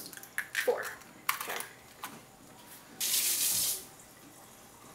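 Egg shells tapping and cracking against a mixing bowl in a few sharp clicks over the first two seconds, followed about three seconds in by a short hissing rush lasting under a second.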